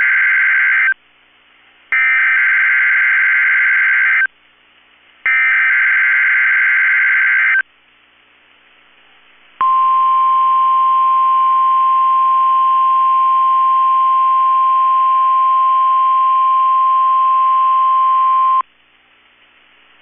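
NOAA Weather Radio Emergency Alert System SAME header: the end of one burst and two more full bursts of buzzing digital data tones, each about two and a half seconds long with a second's gap between them. About two seconds after the last burst comes the steady 1050 Hz weather radio warning alarm tone, held for about nine seconds and then cutting off to faint static. This sequence triggers the alarm on weather radios, sent here as the Required Weekly Test.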